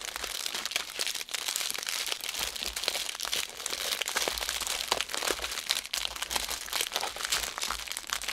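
Plastic bags of diamond-painting drills crinkling and rustling as they are handled and shuffled, a continuous crackle full of small sharp clicks.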